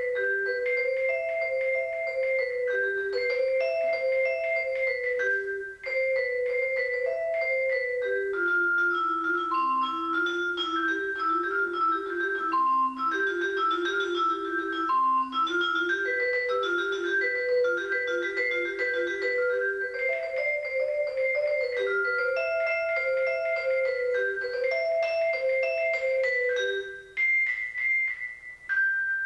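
A vibraphone played four-handed by two players, with quick repeating melodic figures in a lower and an upper register. The playing breaks off briefly about six seconds in, and again near the end.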